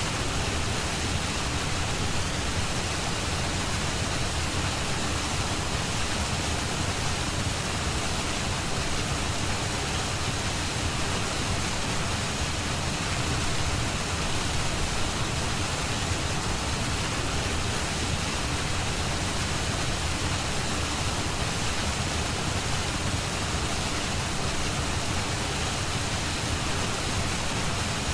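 Steady, even hiss of pink-noise-like rushing sound, like heavy rain or a waterfall, with no change, rhythm or melody.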